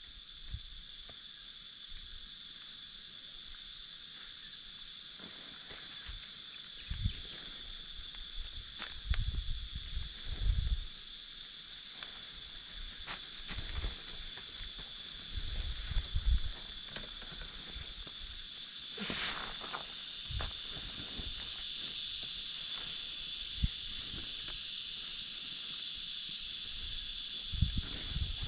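Cicadas droning: a steady high-pitched hiss that swells over the first couple of seconds, with soft low thumps now and then.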